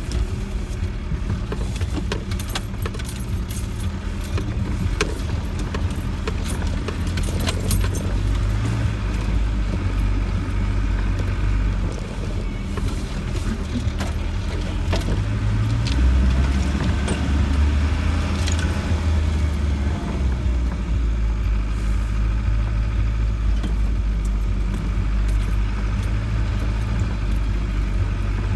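Land Rover 90 engine running under load, heard from inside the cab as it drives along a rutted, muddy track, with loose fittings in the cab rattling and clicking. The engine grows louder about halfway through.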